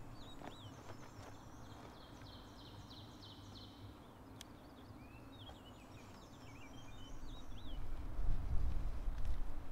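Songbirds singing: short whistled chirps and a fast trill, over a low rumble that gets louder near the end.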